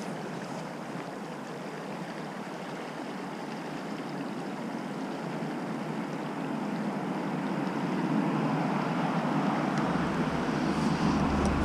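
Fast river current rushing over a riffle, a steady water noise that grows louder about two-thirds of the way through. Near the end there is some low wind rumble on the microphone.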